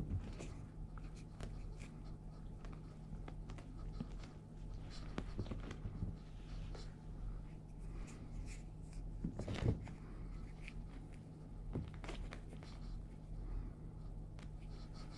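Light scuffs, scratches and rustles of a kitten scampering and pouncing on carpet after a dangled feathery toy, with one louder thump a little under ten seconds in, over a steady low hum.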